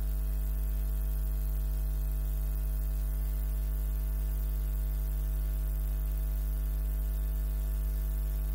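Steady electrical mains hum, a low buzz with higher hum tones stacked above it, unchanging throughout.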